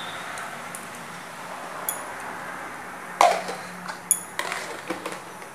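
Light clinks and taps of kitchenware against a nonstick frying pan as cooking oil is poured into the empty pan, the loudest a little past halfway, over a steady faint hiss and hum.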